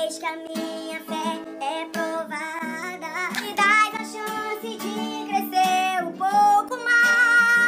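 A worship song: a high voice singing held and gliding notes over acoustic guitar.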